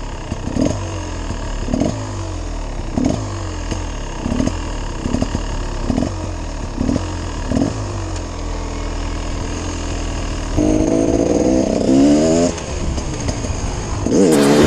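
Beta 300 Xtrainer's single-cylinder two-stroke engine being ridden, the throttle blipped about once a second with the revs falling back after each blip. It revs harder for about two seconds near the end.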